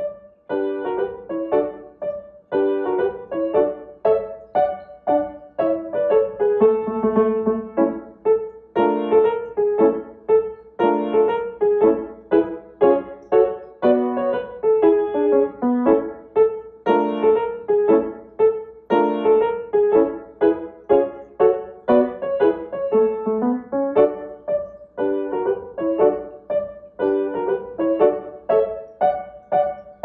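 Background piano music: a steady run of struck notes and chords in an even rhythm.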